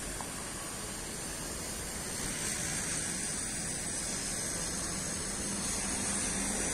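Steady outdoor background noise: an even hiss with a low rumble underneath, and no voices.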